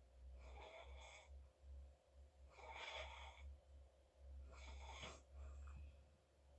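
A sleeping person's noisy breathing, three breaths about two seconds apart.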